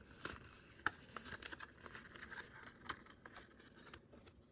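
Faint rustling of paper booklets and cardboard packaging being handled, with scattered light clicks and taps.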